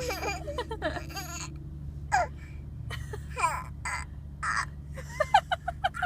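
A young child's voice making short, squeaky imitation hiccup sounds in separate bursts, mixed with laughter, with a quick run of short bursts near the end.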